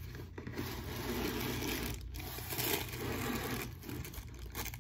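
Cardboard shoebox being handled and its lid lifted off, cardboard scraping and rubbing with some rustling.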